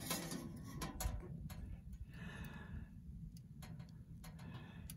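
Wood kindling fire crackling inside a stainless-steel camping stove: irregular sharp ticks and pops over a low rumble, with a brief hiss about two seconds in.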